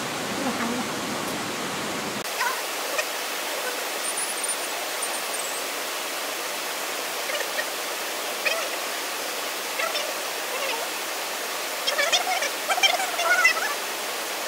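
Log band saw running through a large log, a steady hiss. A few brief louder sounds come near the end.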